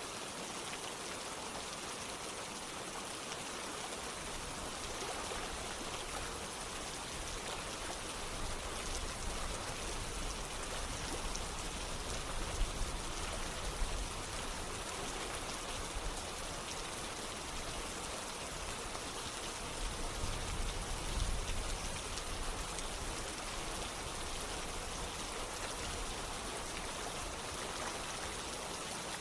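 Steady rain with running water, a dense even hiss across the whole range. Two brief deep swells come in near the middle and again about two-thirds of the way through.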